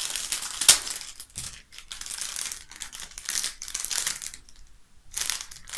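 Thin plastic packaging bag crinkling as it is handled and pulled open by hand, with a sharp crackle about a second in and a short lull near the end.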